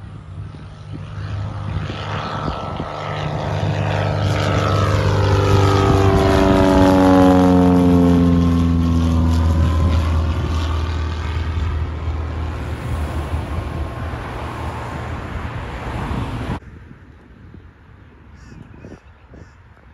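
Single-engine propeller airplane flying low overhead. Its engine drone grows louder, peaks, and drops in pitch as it passes, then cuts off suddenly about three-quarters of the way through.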